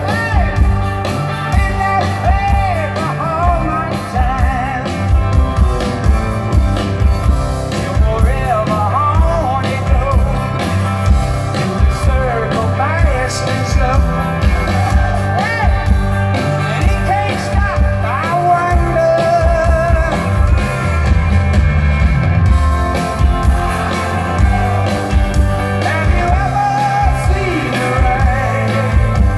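Live rock band with a lead singer and guitars playing a song through a concert PA, heard from far back in an open-air crowd.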